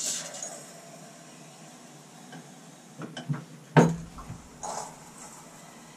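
Ale being drawn from a hand-pulled beer engine into a pint glass, with beer splashing into the glass as the pump handle is pulled. A few sharp knocks and glass clinks sound a few seconds in.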